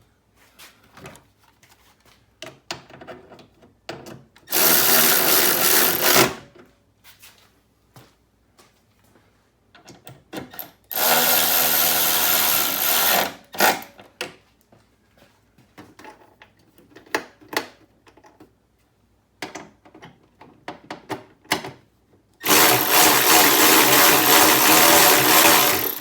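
Power drill running in three steady bursts of about two to three seconds each, driving bolts back in during reassembly, with small clicks and knocks of handled parts and tools between the bursts.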